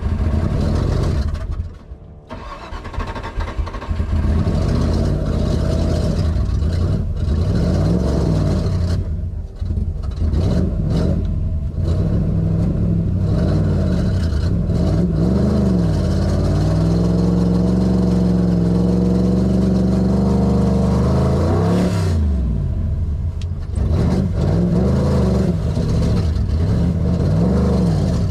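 The Shelby Cobra 289's Ford 289 V8 under hard use, heard from inside the open cockpit, its revs rising and falling through gear changes. The sound dips sharply about two seconds in. Past the middle it holds a long pull at steady high revs, then falls away and climbs again.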